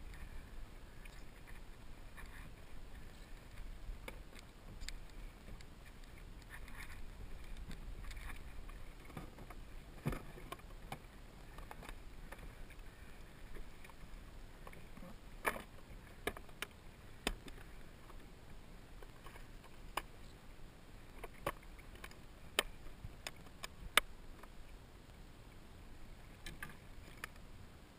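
Sea water lapping against a plastic sit-on-top kayak hull. From about halfway on there is a series of a dozen or so sharp clicks and knocks, the loudest a few seconds before the end.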